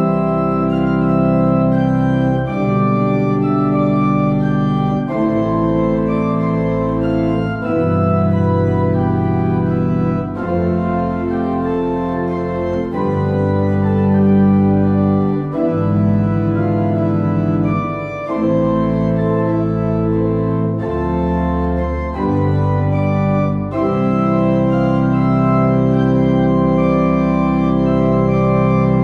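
Church pipe organ playing a slow chordal interlude with deep pedal bass, entering suddenly at full volume. The held chords change every second or two.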